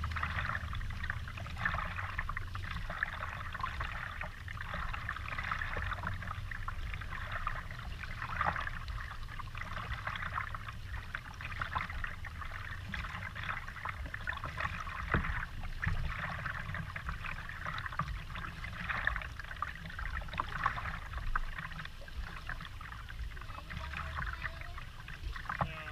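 Kayak paddle strokes dipping into the water and dripping, with water trickling and splashing around a plastic kayak hull, over a low steady rumble.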